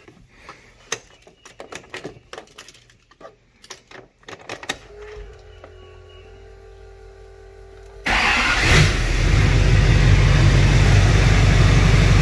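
Scattered clicks and a faint steady hum, then about eight seconds in the rebuilt LBZ Duramax 6.6-litre V8 turbo-diesel starts up abruptly and settles into a steady, loud idle.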